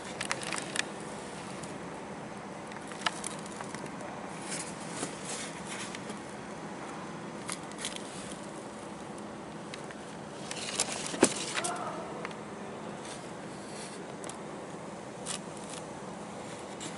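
Handling noise from a pair of Air Jordan 11 sneakers being moved about on their shoebox: scattered light clicks and rustles over a steady hiss. There is a busier patch with one sharp knock about eleven seconds in.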